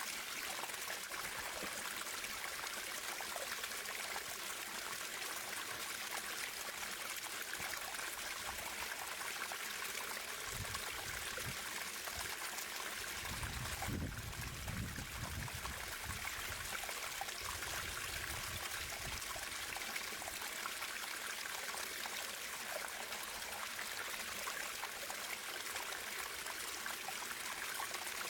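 A natural stream running and trickling steadily, a hiss of water with no breaks. A low rumble swells briefly about halfway through.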